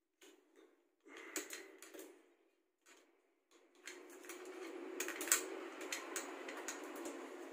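Screwdriver turning the screws out of the metal side plate of a Canon iR copier's paper pickup unit: short bursts of clicking and scraping, then from about four seconds in a steady rasp of the screw turning, with sharp metal ticks.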